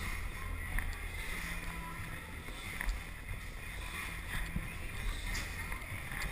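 Muffled rustling from a climber moving on an indoor climbing wall, picked up by a body-mounted camera, with a few light knocks of hands or shoes on the holds over a steady low hum.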